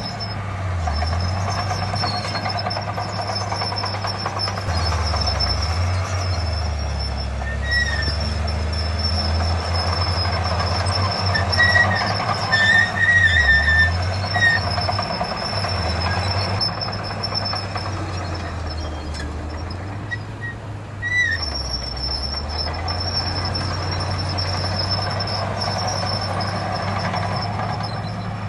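Diesel engine of heavy earthmoving machinery running steadily, its low note dipping several times under load. A few brief high squeals come in around the middle and again about two-thirds of the way through.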